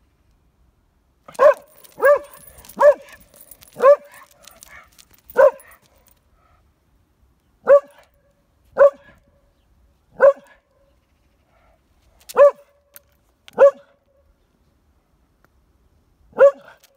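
A shaggy medium-sized dog on a leash barking at a cat it has spotted: about eleven single, sharp barks, spaced irregularly about one to three seconds apart, the first about a second and a half in.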